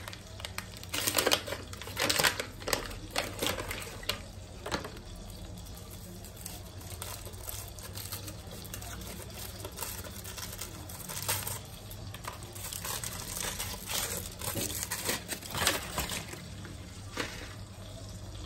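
Plastic and foil chocolate-bar wrappers being torn open and crinkled by hand, in two spells of crackling with a quieter stretch between, over a low steady hum.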